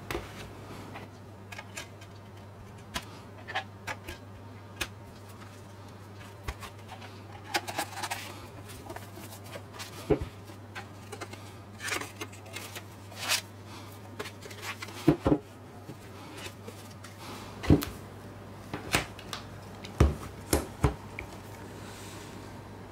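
Blu-ray box-set packaging being handled: irregular clicks, taps and short sliding scrapes of the plastic disc tray, discs, booklet and cardboard box, a few knocks louder than the rest.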